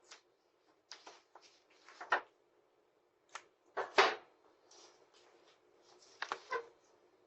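Mail being rummaged through by hand: scattered rustling of paper and envelopes with sharp clacks and knocks, the loudest about 2 and 4 seconds in, as heard through a security camera's microphone with no bass.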